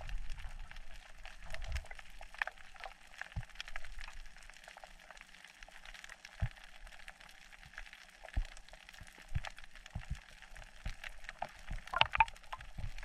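Underwater reef sound heard through a camera housing: a faint, continuous crackle of tiny clicks, with scattered dull low knocks and a brief louder flurry of clicks near the end.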